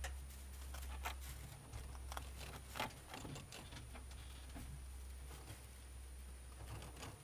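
Young rabbits feeding on fresh greens: faint, irregular crunching and rustling clicks as they chew and pull at the grass, over a steady low hum.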